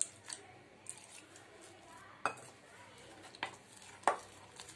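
Gram-flour and rice-flour bajji batter being stirred with a silicone spatula in a glass bowl, faint, with a few sharp clinks of the spatula against the glass.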